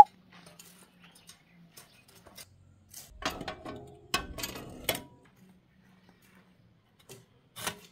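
A sharp click at the very start, then a garden hoe and a metal rake dropped onto a concrete floor, clattering in two bursts between about three and five seconds in, with one more knock near the end.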